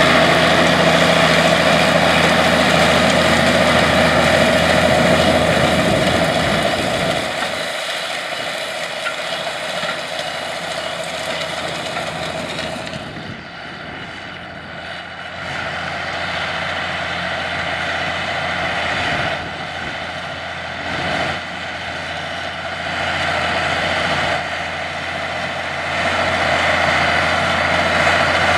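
Allis-Chalmers 200 tractor's six-cylinder diesel engine running steadily, loud and close at first, then heard from across the field as it pulls a tandem disk under load. It grows louder again near the end as the tractor comes closer.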